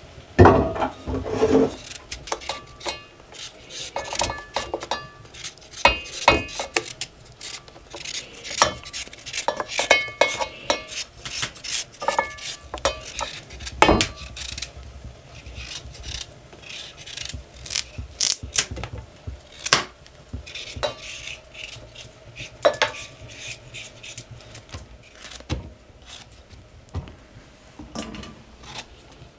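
Kitchen utensils and dishes being handled: irregular knocks, scrapes and rubbing, with now and then a short ringing clink of metal or crockery.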